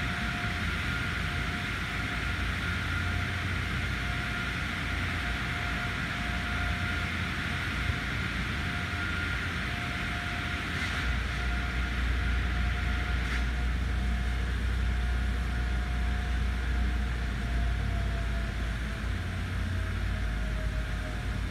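Outdoor background noise: a steady hiss with a low rumble that gets stronger about halfway through, and a faint steady high hum that dips slightly in pitch near the end.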